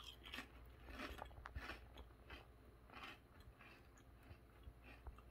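A mouthful of potato chips being bitten and chewed: a run of faint, irregular crunches, two or three a second.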